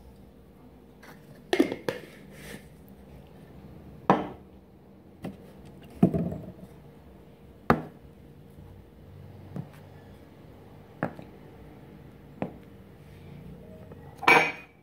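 Metal loaf pans and a glass jar knocking and clinking on a countertop: a string of separate sharp knocks every second or two, with a longer, louder clatter near the end as the pans are moved.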